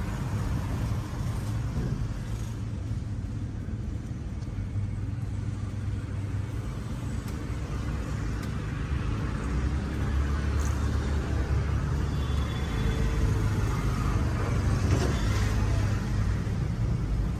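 Steady low rumble of road traffic, with a few faint clicks and no clear strokes standing out above it.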